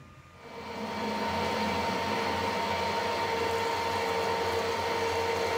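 Harrison 140 lathe spinning up about half a second in and then running steadily with a hum and a high tone, while a long 8.5 mm drill in the tailstock bores into a phosphor bronze rod. The machinist takes the drill for blunt.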